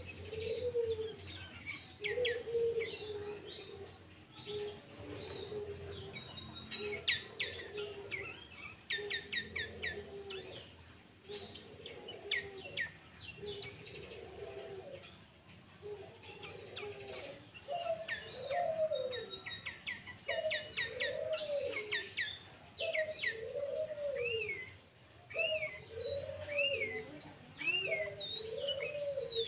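Sooty-headed bulbul (kutilang) singing hard: fast runs of high chirps, sharp down-slurred whistles and chattering phrases, the song 'filled' with mimicked greater green leafbird (cucak ijo) phrases. Under it, a lower rising-and-falling cooing call repeats, about once a second in the second half.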